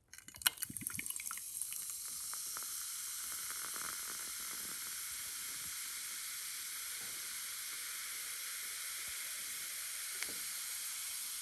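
Carbonated Mountain Dew Zero soda fizzing in a glass with ice cubes. There are clicks and crackles in the first second or two, then a steady hiss of bubbles.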